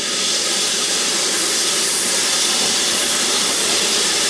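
Steady hiss of steam escaping low at the front of a BR Standard Class 5 4-6-0 steam locomotive, by its cylinders.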